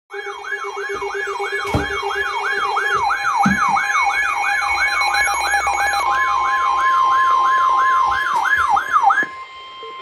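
Weather alert radios sounding their alarms together for a severe thunderstorm warning: a fast warbling siren tone sweeping about three times a second over other steady beeping tones. About six seconds in, a steady single-pitched warning alarm tone joins. The sweeping cuts off near the end, with a few knocks of buttons being pressed on the radios.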